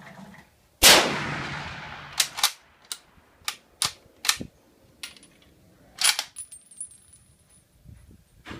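A single rifle shot from a 1943 Remington M1903A3 .30-06 bolt-action rifle, its report echoing and dying away over about a second and a half. It is followed by a run of short metallic clicks and clacks as the bolt is worked to eject the case and chamber the next round, and a further sharp crack about six seconds in.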